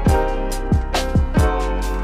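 Background music: an electronic track with a steady kick-drum beat and sustained synth chords.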